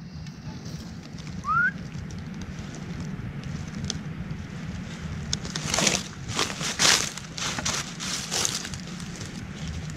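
Dry fallen leaves crackling and rustling under approaching footsteps, in a run of crunches from about five and a half seconds in, over a steady low rumble. A single short rising whistle about a second and a half in.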